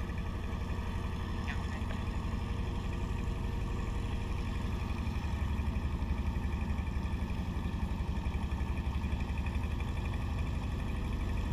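Small wooden boat's engine running steadily under way, a low, fast pulsing hum, with water rushing along the hull.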